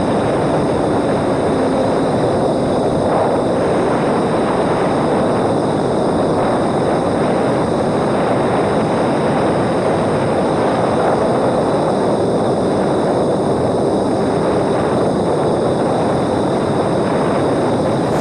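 Steady rush of airflow and propeller noise from a small homemade electric RC airplane in flight, as picked up by its onboard camera's microphone, with a faint motor hum under it.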